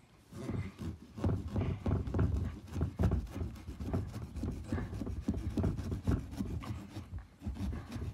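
A large kitchen knife sawing through a pumpkin's rind and flesh in quick, irregular strokes.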